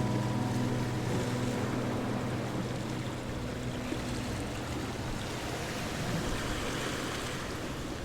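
A steady rushing noise, with guitar music fading out over the first few seconds.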